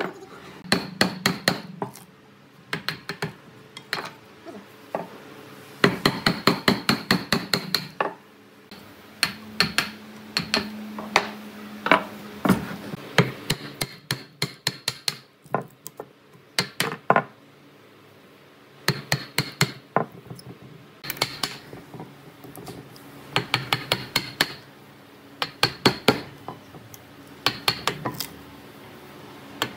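Wooden mallet striking a chisel that chops into a wooden post: quick blows, several a second, in bursts with short pauses, splitting out the waste between saw kerfs.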